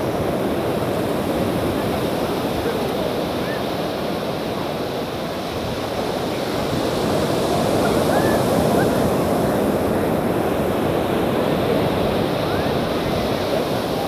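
Sea surf breaking on a sandy beach: a steady rushing wash of waves that swells a little about halfway through.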